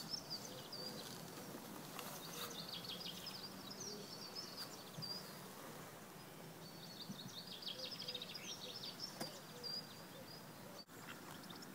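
Songbird singing in the background: three phrases of high, fast twittering trills, over a faint steady outdoor hiss.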